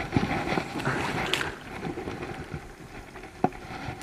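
Water sloshing and lapping in shallow water as a landing net holding a freshly caught carp is moved about at the bank, with irregular knocks and rustles from handling; the sloshing is busiest in the first second and a half.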